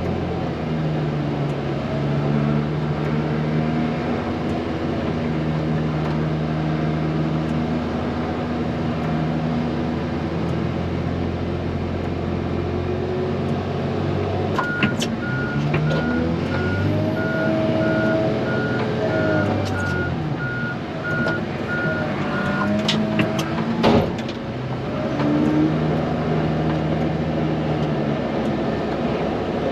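A snow-removal vehicle's engine running steadily, with a reverse alarm beeping for about eight seconds midway as the engine speed rises and falls, then a sharp knock just after.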